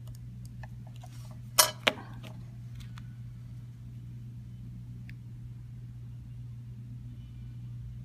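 Handling clicks from a small electronic device: a few light ticks, then two sharp clacks about a third of a second apart as the opened iPod Touch is closed up and handled, and one faint tick later. A steady low hum runs underneath.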